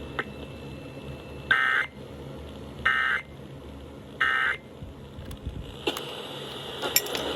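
Emergency Alert System end-of-message data tones: three short warbling digital bursts, each under half a second, about 1.4 seconds apart, signalling that the severe thunderstorm warning has ended. A few clicks and faint hiss follow near the end.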